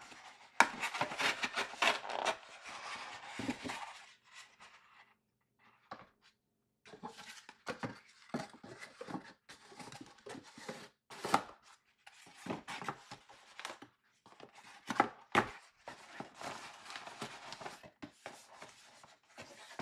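Cardboard box and paper packaging being handled: a few seconds of paper rustling and crinkling, a short pause, then scattered scrapes of cardboard flaps and inserts with a few sharp taps.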